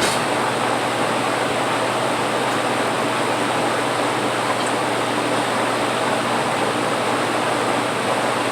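Electric fan running close to the microphone: a steady rushing of air with a faint even hum underneath.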